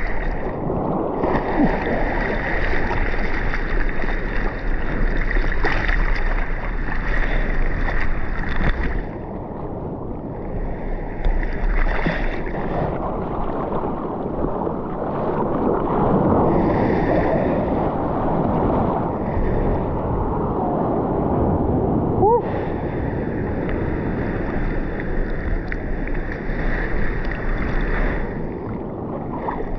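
Seawater sloshing and splashing right against the microphone at the surface. Several times it turns muffled for a few seconds, as the camera dips into the water.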